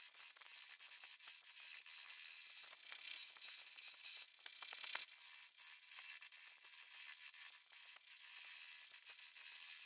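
Turning tool cutting a spinning off-axis pine blank on a wood lathe: a continuous high hiss of shaving wood, broken by rapid chattering clicks as the edge meets the uneven surface, easing briefly about three and four and a half seconds in.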